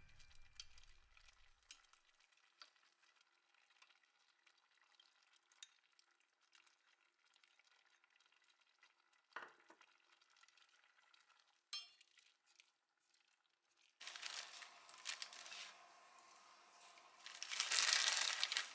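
Curry udon soup simmering in a stainless steel pot while it thickens: faint bubbling with scattered small pops and clicks, turning to a louder sizzling, bubbling hiss about fourteen seconds in that is loudest near the end.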